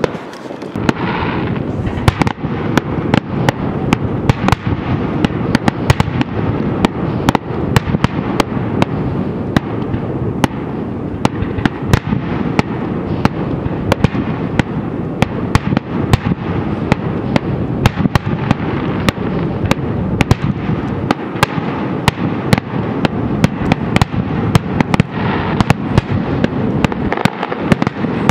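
Fireworks going off in a dense barrage: a rapid, unbroken string of sharp bangs and cracks, several a second, over a continuous low rumble.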